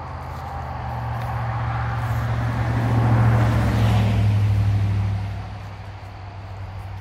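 A motor vehicle passes by. Its low hum and rushing noise grow louder to a peak about three to five seconds in, then fade, and the hum drops slightly in pitch as it goes past. Crickets chirp faintly underneath.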